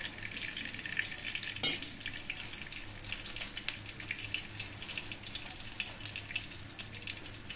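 Cooking oil heating in a metal kadai, with a faint, steady fine crackle and sizzle, over a low steady hum. One sharper click about two seconds in.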